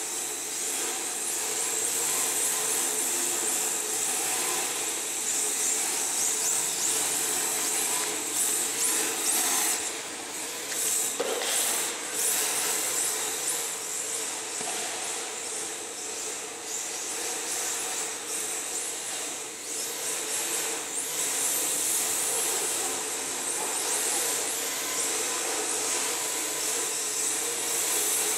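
Electric RC drift cars running: a high motor whine that rises and falls as they are throttled, with no pause.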